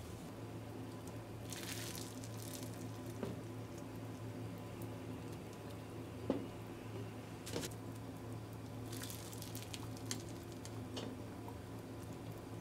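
Eggs being lowered on a ladle into a pot of water: soft splashes and sloshing, with several light knocks of the ladle and eggs against the enamel pot, the loudest about halfway through. A steady low hum runs underneath.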